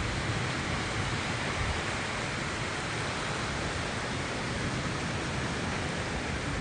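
Heavy wind-driven rain from a severe thunderstorm, a steady, even hiss.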